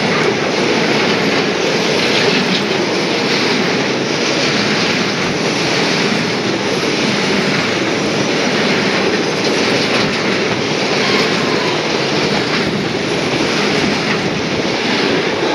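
Hopper wagons of a freight coal train rolling past close by: a loud, steady noise of steel wheels running on the rails.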